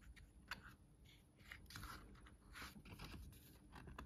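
Faint rustles and soft taps of a hardback picture book's page being turned by hand.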